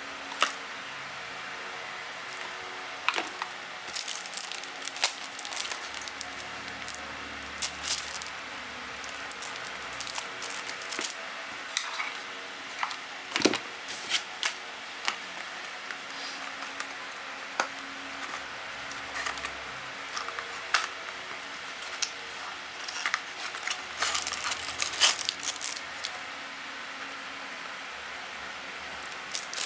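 Handling noises from unboxing a replacement camera battery and its packaging: scattered small clicks, taps and light plastic rustles over a steady hiss. The handling grows busier in the last few seconds.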